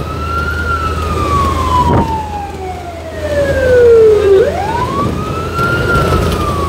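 Fire engine's siren wailing, heard from inside the cab: a quick rise in pitch, then a slow fall lasting about four seconds, with the next quick rise near the end. A steady low engine rumble sits underneath.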